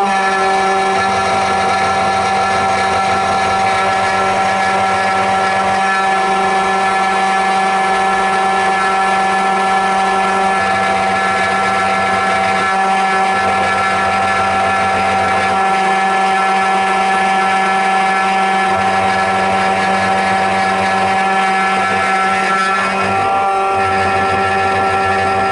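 SEC-E9 computerised key cutting machine running, its cutter milling a nickel-silver HU92 key blank with a steady whine.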